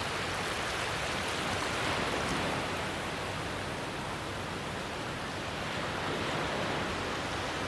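Ocean surf: waves washing in as a steady rushing noise, swelling slightly about two seconds in.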